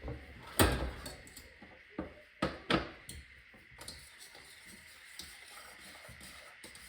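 Kitchen handling sounds: a few sharp knocks and clunks, the loudest about half a second in and three more around two to three seconds in, followed by lighter ticks and taps.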